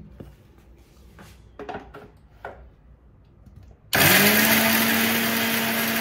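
A few light clicks and knocks from the jar and lid being handled. About four seconds in, an electric mixer grinder switches on abruptly and runs loud, grinding coriander seeds, black pepper, ginger, garlic and shallots; its motor whine climbs quickly, then holds a steady pitch.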